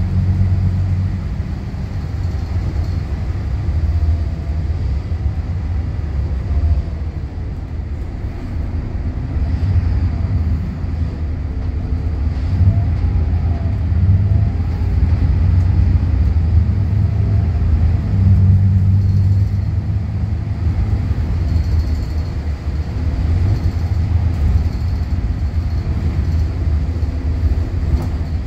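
Interior sound of a Volvo B8RLE bus on the move, heard from the rear seats: the rear-mounted diesel engine and ZF Ecolife automatic transmission give a continuous low drone that rises and falls as the bus accelerates and eases off, with a faint whine that comes and goes.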